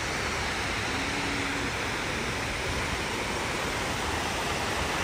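Steady rushing of water cascading down the walls of the 9/11 Memorial reflecting pool into its basin.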